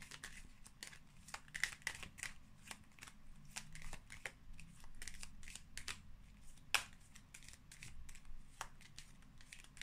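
A deck of tarot cards being shuffled by hand: a faint, quick run of card flicks and rustles, with one sharper click about two-thirds of the way through.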